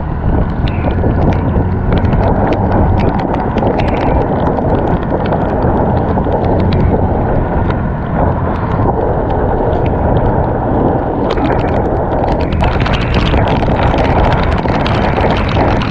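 Wind buffeting the action camera's microphone on a moving scooter, a loud steady rumble with the scooter's running and wet-road noise underneath, and frequent small ticks through it.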